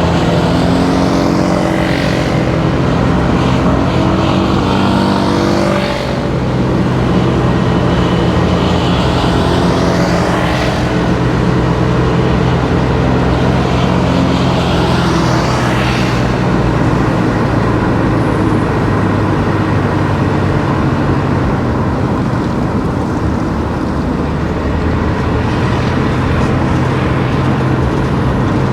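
Car driving along a road with steady engine and road noise, and other vehicles passing by several times.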